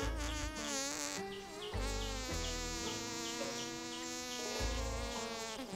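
Blackback mountain gorilla passing wind: buzzing farts of wavering pitch, heard over background music with a regular bass pulse.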